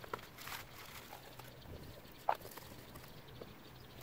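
Light rustling and scattered clicks of scrap copper wire pieces being handled and dropped into a graphite crucible, with one sharper click about two seconds in.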